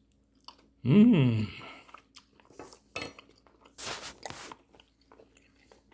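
A man eating a forkful of pasta. About a second in comes a short hum of enjoyment that falls in pitch. Chewing follows, with a few scattered clicks and short crisp noises.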